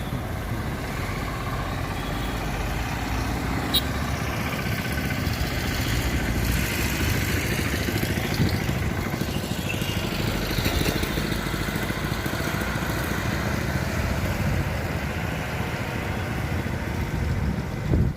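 Engine of heavy construction machinery running steadily, with a sharp click about four seconds in.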